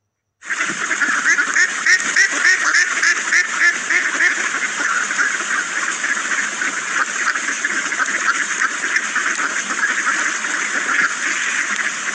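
A flock of ducks quacking, many calls overlapping in a continuous chorus that starts abruptly about half a second in.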